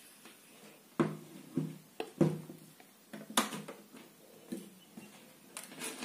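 A handful of short knocks and clicks from handling a table fan motor and its loose wires on a wooden bench, the loudest about three and a half seconds in. The motor is switched off, so there is no hum.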